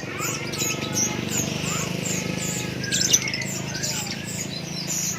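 Lovebirds chirping continuously, many short high chirps and squeaks a second, over a steady low hum.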